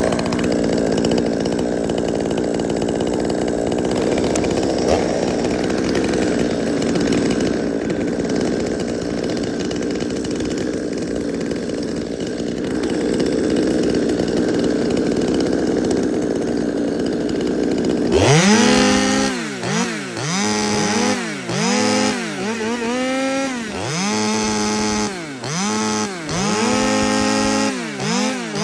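Stihl 200T two-stroke top-handle chainsaw engines running steadily. From about eighteen seconds in, a saw is blipped again and again, its pitch shooting up to full revs and dropping back roughly once a second.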